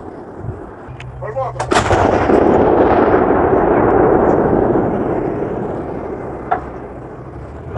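M109 self-propelled howitzer firing: one sharp blast about two seconds in, followed by a long rolling rumble that fades away over several seconds.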